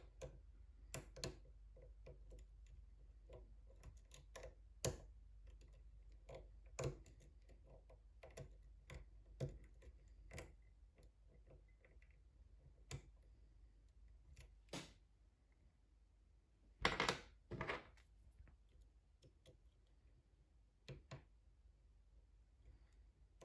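Faint, irregular metallic clicks and ticks of a hook pick and tension wrench working the pins of a six-pin pin-tumbler lock during single-pin picking, with a couple of louder clicks about two-thirds of the way through.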